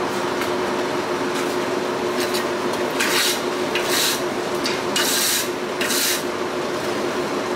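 Four short, rough rubbing scrapes about a second apart as a red-hot steel blade is pressed and slid under a wooden block on the anvil. Under them runs a steady background roar with a low hum.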